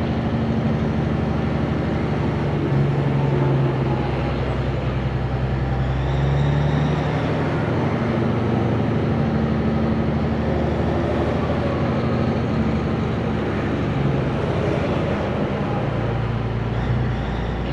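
Peterbilt cabover truck's Caterpillar 3406B diesel engine running steadily, its note rising slightly about three seconds in and easing back later on.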